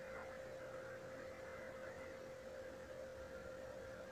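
Faint steady electrical hum, one unchanging tone over a low background hiss.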